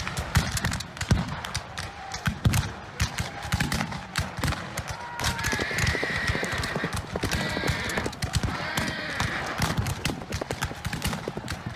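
Horses galloping, a dense clatter of hoofbeats, with horses whinnying several times from about the middle on: a cavalry charge sound effect.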